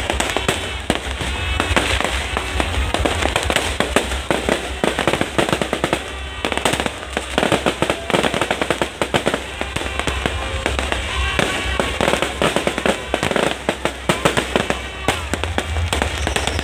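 Aerial fireworks going off in a dense, irregular barrage of bangs and crackles, one after another, with music and voices underneath.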